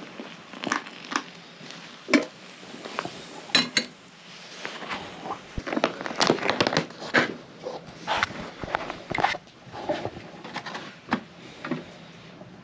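Handling noises at a camp table: a foil freeze-dried meal pouch crinkling amid irregular taps, knocks and clatters of cooking gear.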